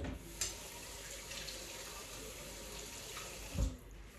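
Kitchen tap running steadily into a pan, filling it with hot water to heat sausages. There is a sharp knock just after the water starts and a dull thump near the end.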